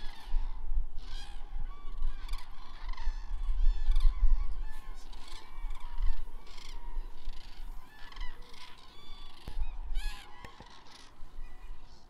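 A flock of birds calling, many short calls overlapping one another, over a low rumble.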